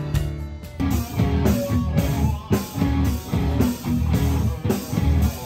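A rock band playing live, with a drum kit keeping a steady beat of about two strikes a second under an electric bass and guitar.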